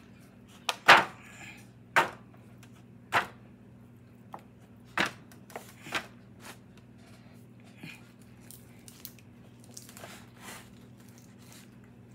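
Hands tearing roast chicken off the bone in a thin aluminium foil pan: a series of sharp clicks and crackles, the loudest in the first six seconds and fainter after, over a steady low hum.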